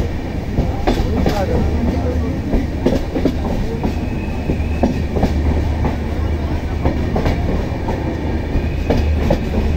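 Steady low rumble of a moving vehicle heard from inside, with scattered rattles and clicks over it.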